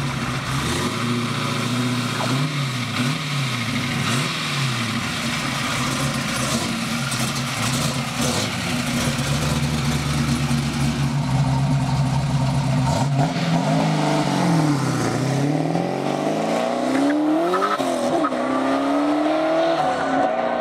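Twin-turbo LS-based V8 of a 1969 Camaro idling with a few quick throttle blips, then pulling away hard. Its pitch climbs and drops several times at the stick-shift gear changes.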